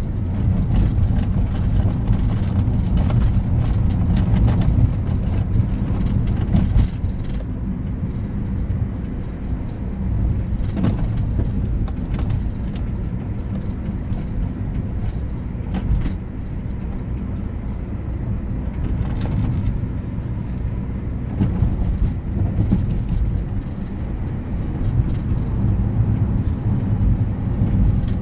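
Car engine and tyre rumble heard from inside the cabin while driving: a steady low drone with a few sharp knocks here and there.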